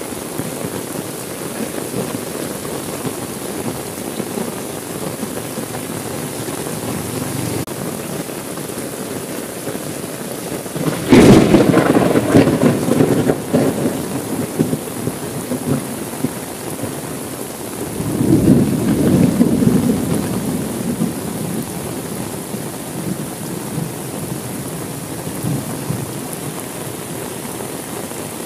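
Steady heavy rain with a sudden loud thunderclap about a third of the way in, rumbling on for a few seconds. A second, softer roll of thunder follows several seconds later.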